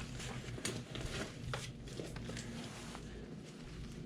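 Faint rustling with scattered small clicks and knocks from rummaging through papers and debris.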